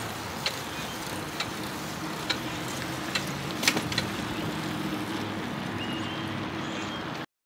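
Riding a bicycle along an asphalt street: steady wind and road noise with a light tick about once a second. The sound cuts off suddenly near the end.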